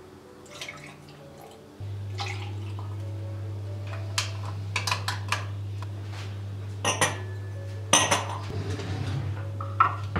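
Porcelain cups, saucers and glasses clinking and knocking as they are handled and set down on a wooden tray. Under them, a steady low hum starts suddenly about two seconds in and stops right at the end.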